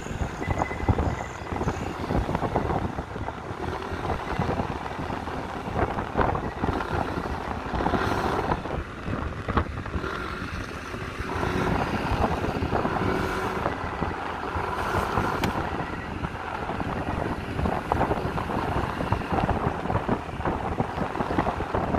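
Motorcycle riding along a road: engine running under steady wind buffeting on the microphone.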